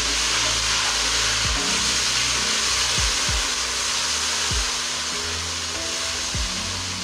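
Hot oil sizzling and hissing after water is added to fried onions and ginger-garlic paste in an aluminium karahi, which stops the onions from burning. A wooden spoon scrapes and stirs through it, and the hiss eases a little near the end.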